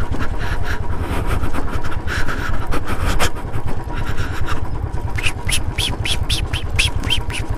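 Royal Enfield motorcycle's single-cylinder engine running at low speed over a rough, rocky dirt track, with scattered rattling knocks from the bumps. A quick run of sharp high ticks, about four a second, comes in over the last couple of seconds.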